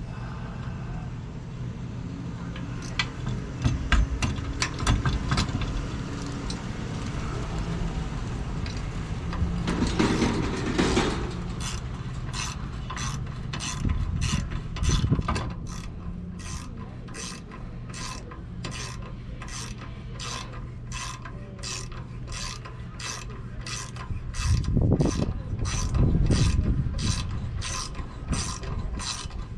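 Hand ratchet wrench working the bolts of an RV rear stabilizer jack. It starts with scattered clicks and knocks and a short scraping noise about ten seconds in, then settles into even ratchet clicks about two a second.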